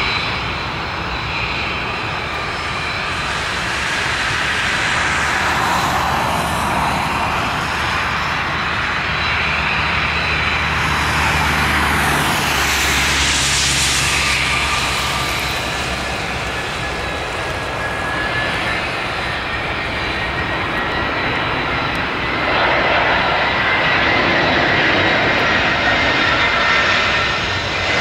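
Airbus A320 jet engines on final approach with landing gear down: a continuous rushing noise with a high-pitched whine, getting louder about 22 seconds in as the plane comes close.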